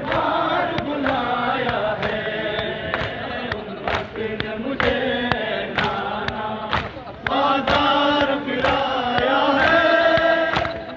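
Crowd of Shia mourners chanting a noha in unison. They keep time with sharp beats about twice a second, the chest-beating of matam.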